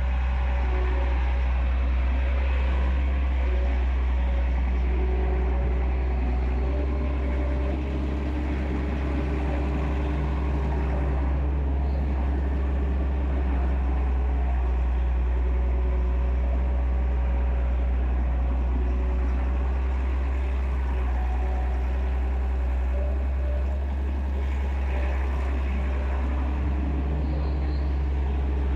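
Excavator's diesel engine running steadily with a deep, low drone, and pitched tones above it that shift slowly as the machine works.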